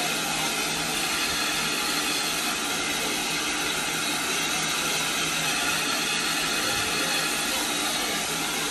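Austerity 0-6-0 saddle-tank steam locomotive standing and hissing steadily as steam escapes.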